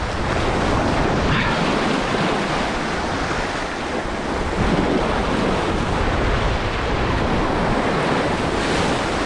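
Sea waves surging and breaking over rocks, with wind buffeting the microphone.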